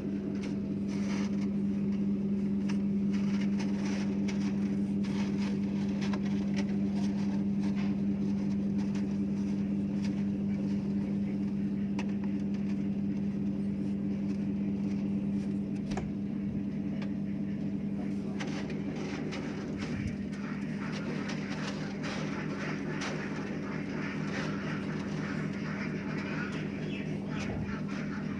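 A steady low machine hum with scattered clicks and knocks. From about two-thirds of the way in, a chatter of poultry calls rises over it.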